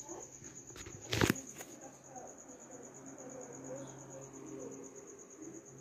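A cricket chirping in a steady, fast-pulsing high trill, with one sharp knock about a second in.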